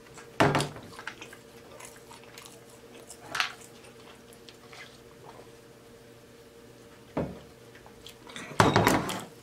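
A man drinking from a large insulated water bottle: a few short knocks and handling sounds as the bottle is raised and its lid worked, quiet sips in between, and a louder, longer burst of sound near the end as the bottle is lowered.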